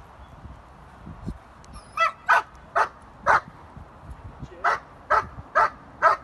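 A trained dog barking at a person it has found hiding, marking the find. There are eight sharp barks in two runs of four with a short pause between them, starting about two seconds in.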